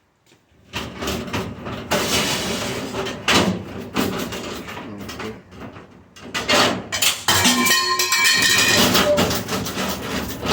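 Tools clanking, knocking and scraping against the stainless steel housing of a restaurant dishwasher as a screw is worked loose, with brief metallic ringing a little past the middle.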